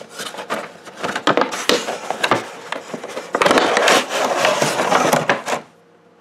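A cardboard gift box being opened by hand: scattered knocks and scrapes as the lid comes off, then a loud stretch of rustling paper and cardboard as the paper information sheet on top is handled.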